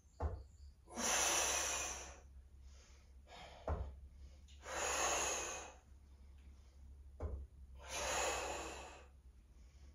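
A person breathing hard with effort during a core exercise: three long, heavy breaths about three seconds apart, each preceded by a short soft knock.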